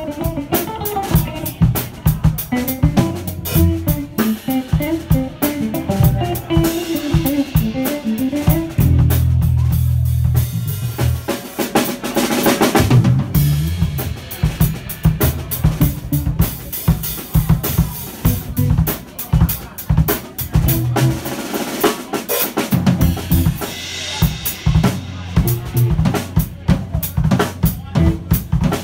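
A live drum kit played with sticks: bass drum, snare and cymbals keep a driving beat. An electric guitar plays a picked melodic line alongside it in the first part, and the drums carry the sound after that.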